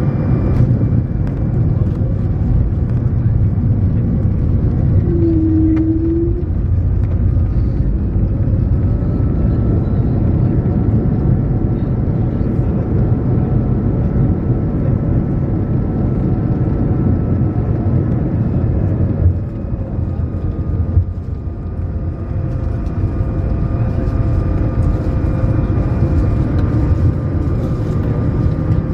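Airbus A220 cabin noise: a steady low rumble of engines and airflow, with thin steady engine tones running through it. A brief single tone sounds about five seconds in, and the rumble eases slightly for a few seconds past the middle.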